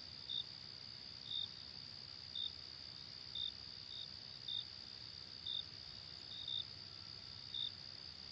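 Insects chirping faintly: a steady high-pitched trill, with short, sharper chirps about once a second, some of them closer together.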